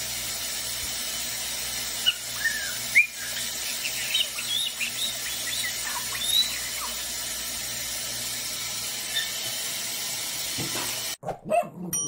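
Black-headed caique giving short, rising whistles and chirps over the steady hiss of a running shower. The whistles are clustered between about two and seven seconds in. Everything cuts off abruptly about a second before the end.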